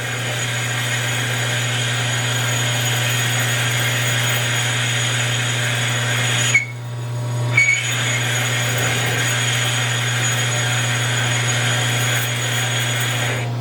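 Parting tool cutting into a spinning ring blank on a Hardinge HLV lathe, a steady cutting noise over the lathe's constant motor hum. About six and a half seconds in the cut stops for about a second, with a brief squeal as the tool leaves and then re-enters the work.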